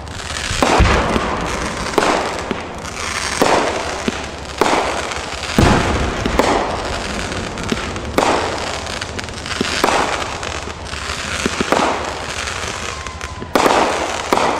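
Fireworks going off in quick succession: about a dozen sharp bangs roughly a second apart over continuous crackling, with deep booms about a second in and again near the middle.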